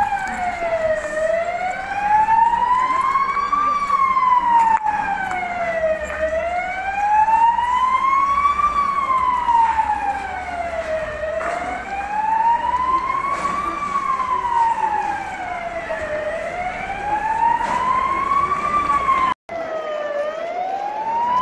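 Emergency vehicle siren wailing: a slow rise over about four seconds, then a quicker fall, repeating about every five seconds. The sound cuts out for an instant near the end.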